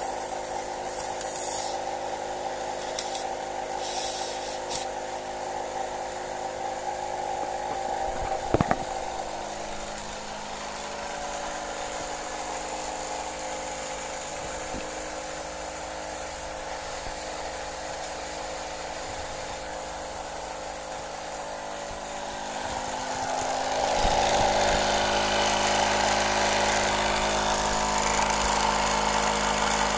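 Refrigerator compressor running as a DIY 12 V air compressor, a steady mechanical hum with a brief sharp click about eight seconds in. It gets louder about 23 seconds in and stays so.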